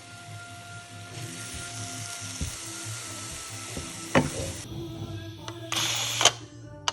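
Curry ingredients sizzling in a hot pan over background music. There is a sharp knock about four seconds in, and a louder, brief burst of noise near the end.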